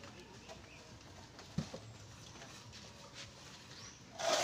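Faint sounds of hand-plastering: a steel trowel working wet cement render on a block wall, with a single sharp knock about one and a half seconds in and faint bird chirps. A loud scraping burst starts right at the end.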